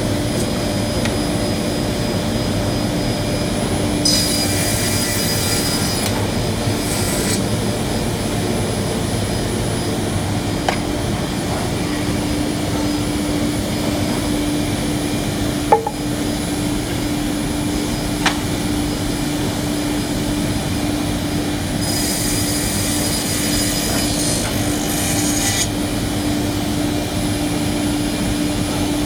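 Circular saw running steadily with a motor hum, cutting through bundles of wooden venetian-blind slats twice: once about four seconds in and again about twenty-two seconds in, each cut lasting a few seconds. A few sharp knocks of wood on wood come in between.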